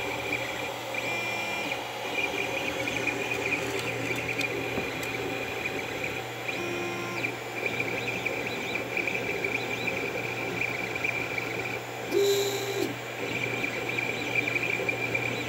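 Creality CR-10 3D printer running a print: its stepper motors whine in held tones that shift pitch every few seconds, over a steady fan hum. About twelve seconds in, a louder tone lasts under a second.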